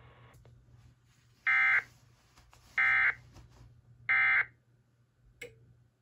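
EAS end-of-message code: three identical short buzzy data bursts about 1.3 s apart from a TFT EAS 911 encoder/decoder, marking the end of the relayed severe thunderstorm warning. A single click near the end.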